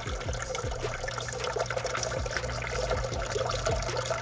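Water trickling and splashing steadily into an outdoor turtle tub.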